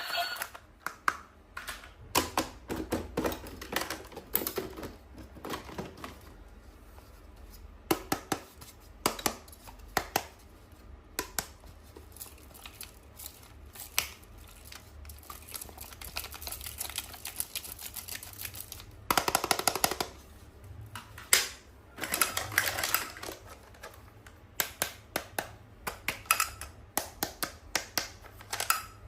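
Hands handling toys and packaging: irregular sharp clicks and taps of small plastic pieces, with brief rustling twice in the second half.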